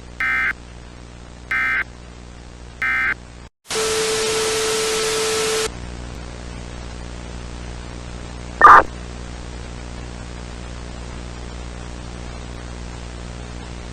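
Emergency Alert System end-of-message data tones: three short, equally spaced screechy bursts, followed by about two seconds of loud static carrying a steady low tone. About nine seconds in comes one short, very loud blip, the loudest sound here, over a steady background of broadcast static and hum.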